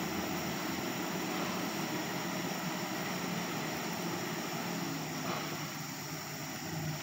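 Truck engine running steadily, a continuous low drone over a background hiss.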